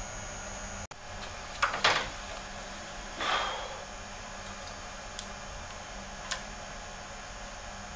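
Hand tools and metal parts clinking at the front of the engine: two sharp knocks about two seconds in, a short scrape a second later, then a few light ticks.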